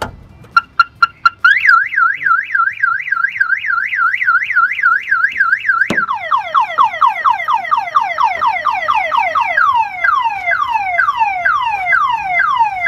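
Aftermarket car alarm siren set off by the hood pin switch when the hood is opened. It starts with a few quick beeps, then a loud wail that rises and falls about three times a second. About six seconds in it switches to a fast run of falling whoops.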